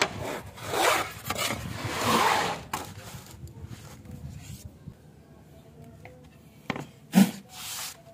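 Wooden boards sliding and scraping over a plywood sheet for the first few seconds, then a sharp knock about seven seconds in as a board is set down, followed by a short scrape.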